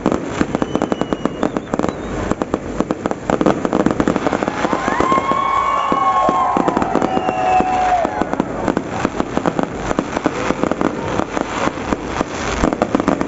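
Fireworks going off without pause: a dense, rapid crackle of many small bangs in quick succession.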